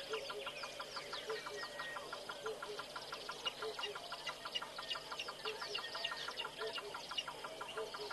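Outdoor bush chorus of several birds calling together: a low two-note call repeats about once a second over many quick, high descending chirps and a fast, continuous pulsing trill.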